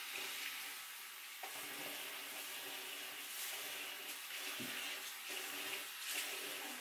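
Water running steadily from a bathroom tap into a ceramic washbasin, splashing as a sponge is held in the stream and wiped around the bowl to rinse off the cleaning cream.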